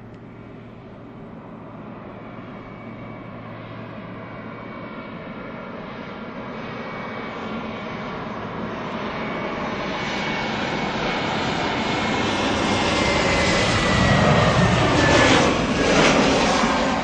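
Airbus A320neo's Pratt & Whitney PW1100G geared turbofans on landing approach, growing steadily louder as the jet comes in. A high whine falls in pitch as it passes close, with a broad roar peaking about fifteen seconds in, then easing off near the end.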